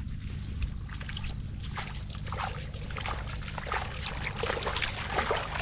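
Shallow lake water splashing and sloshing irregularly as someone wades through it, feeling for snails, over a steady low rumble.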